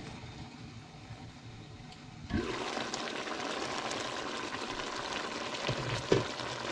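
Pot of pinakbet vegetables simmering under a glass lid. About two seconds in the lid is lifted off and the bubbling hiss of the simmer comes through much louder. A single knock near the end as the lid is set down.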